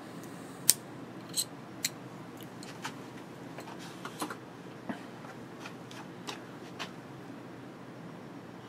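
Scattered small clicks and taps of a compact weapon-mount light being handled and fiddled with at its quick-release mount, irregular and light, the sharpest ones in the first two seconds.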